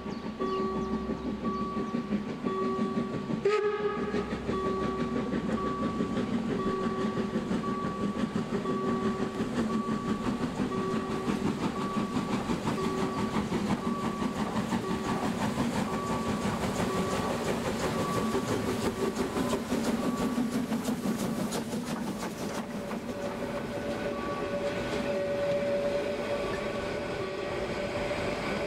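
Narrow-gauge DR Class 99.23 2-10-2 steam locomotive working its train across a street, with exhaust chuffs and wheel-on-rail clatter, then carriages rolling past near the end with a rising squeal. A level-crossing warning signal beeps in a steady pulse through the first two-thirds.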